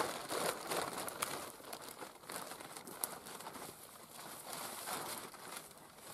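A hammock with a built-in bug net crinkling and rustling as it is handled and spread out on the ground, with small handling clicks throughout.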